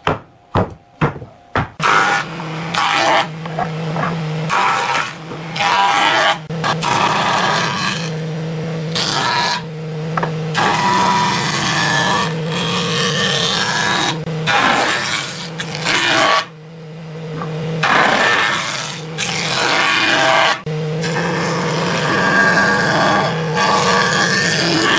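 A few sharp wooden knocks as boards are set down, then a jointer's cutterhead planing the faces of boards pushed across it, a loud steady cutting noise over the motor's hum, dipping briefly between passes.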